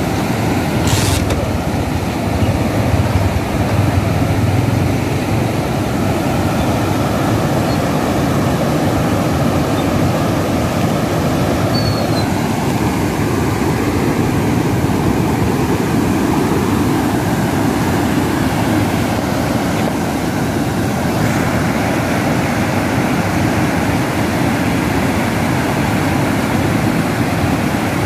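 Muddy floodwater of a stream running full, rushing and churning in rapids over the ground: a loud, steady, deep rush of water.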